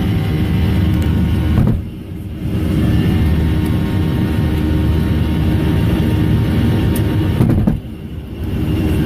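Jet airliner engine noise: a steady low rumble with a layer of steady humming tones, briefly dropping in level about two seconds in and again near the end.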